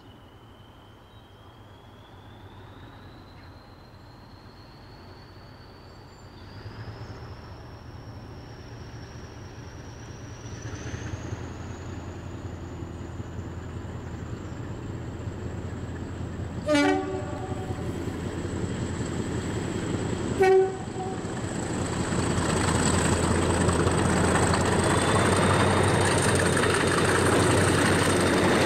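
English Electric Class 40 diesel locomotive approaching under power: its engine rumble builds steadily while a thin turbocharger whistle climbs in pitch. Two short horn blasts sound about two-thirds of the way in, a few seconds apart. The engine is loudest near the end as the locomotive passes close by.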